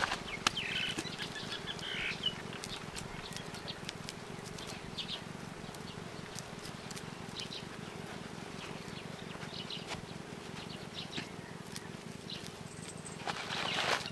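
Birds chirping in short, scattered calls over a steady low background hum, with occasional soft clicks and pats from hands working wet clay.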